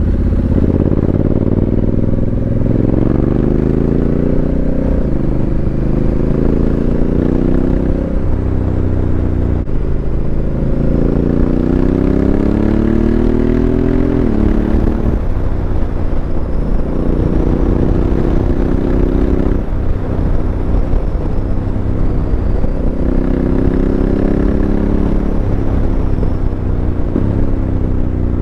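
Honda CRF1100L Africa Twin's parallel-twin engine running through an aftermarket Fuel Exhausts exhaust, pulling hard through the gears: the note climbs in pitch and drops sharply at each upshift, with a few stretches held at a steady speed. Wind noise on the helmet microphone runs under the exhaust note.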